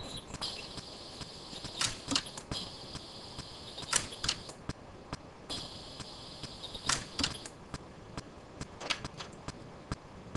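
Orion pulse-arc dental welder firing repeated spot pulses into a metal dental bridge to warp it: a series of sharp snaps, several in quick pairs, with a high steady tone that comes and goes between them.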